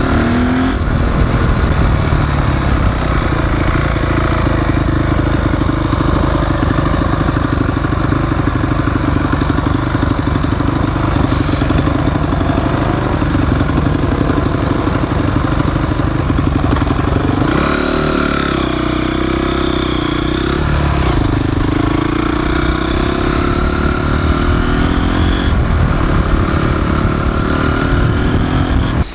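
Single-cylinder 250 cc four-stroke off-road motorcycle running steadily under way, heard from the bike itself. About two-thirds through, the engine note drops and then climbs again, as with a change of throttle or gear.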